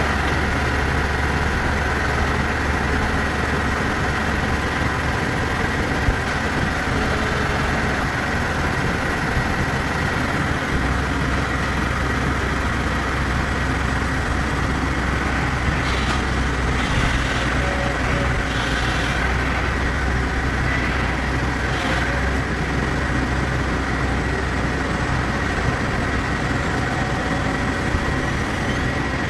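Tata Hitachi EX110 crawler excavator's diesel engine running steadily under load while it works its boom and tracks; its low engine note shifts about ten seconds in.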